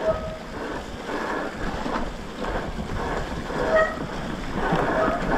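Mountain bike's rear disc brake squealing in short flat bursts, about four times, over the rumble of tyres on a muddy trail and wind on the microphone. The rear brake pads are worn out.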